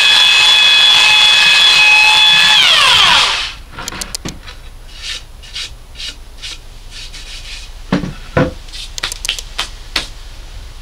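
Belt sander running on a poplar and alder cutting board, then switched off about three seconds in, its whine falling as it winds down. After that, light scraping and rubbing of wood, with two soft knocks as the board is set down.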